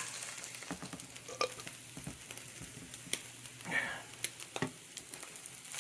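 Slices of Spam frying in a pan: steady sizzling with scattered sharp pops of spattering fat.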